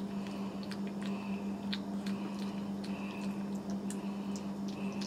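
Cavalier King Charles spaniel puppy licking and chewing wet porridge off a spoon: small wet smacking and clicking mouth sounds, many in quick succession, with faint squeaks between them.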